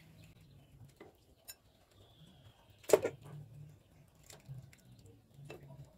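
A plastic slotted spatula knocking and scraping against a cooking pot and a plate as boiled fish heads are lifted out of the broth, with one sharp clack about three seconds in.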